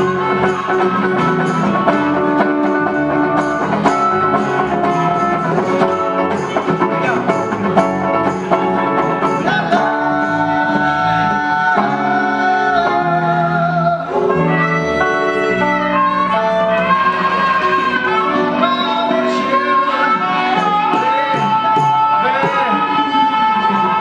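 A small live band jamming: bongos, electric and acoustic guitars, and a harmonica played into a microphone. Long held, wavering melody notes come in from about halfway through.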